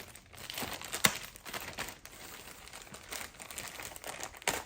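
Crinkly rustling and handling noises from new bike grips being handled, with scattered sharp clicks and one loud click about a second in.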